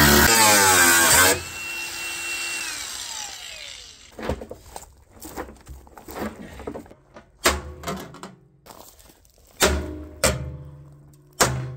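Angle grinder with a cutoff wheel cutting through the water heater's steel tank, then switched off and winding down with a falling whine. After that come a series of sharp metallic knocks and clanks as the cut-out panel of the tank is stepped on and pried open.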